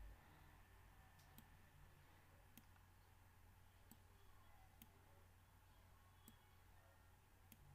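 Faint computer mouse clicks, about seven at irregular intervals, over a low steady hum of room tone.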